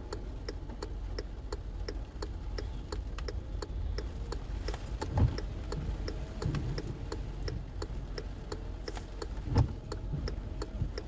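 A car's turn-signal or hazard flasher ticking evenly, about three ticks a second, over a low steady rumble. Two louder dull thumps come about five seconds in and near the end.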